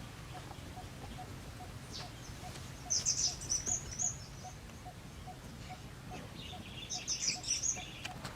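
A bird singing two short bursts of high, rapid chirping, about three seconds in and again near the end. Under it runs a faint regular ticking, about three a second, and steady background noise.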